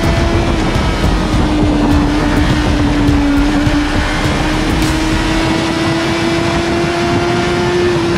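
Motorcycle engine running at a steady highway cruise, its note dipping slightly in pitch and rising again near the end, under heavy wind rush.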